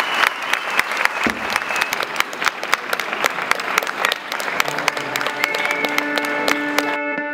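An audience applauding, with dense, irregular hand claps. About five seconds in, a live band's guitar starts playing sustained notes under the clapping.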